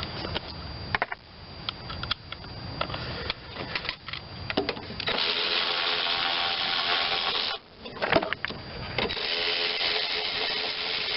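A power driver with a socket spins out the bolts holding the engine housing on a Tecumseh mower engine: a steady whir for a couple of seconds about halfway through, then again near the end. Before that come light metallic clicks and clinks of the socket being fitted.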